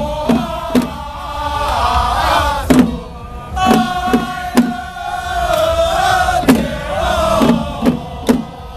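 Small ritual drum troupe (xiao fagu) chanting in unison in drawn-out, wavering phrases, punctuated by sharp, irregular strikes on their small hand-held drums.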